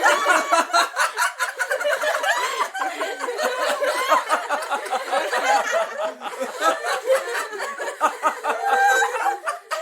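Sitcom-style laugh track: a studio audience laughing, many voices overlapping in a continuous wave of laughter.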